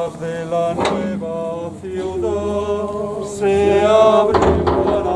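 Slow liturgical funeral chant sung in long held notes that step from pitch to pitch, growing louder toward the end.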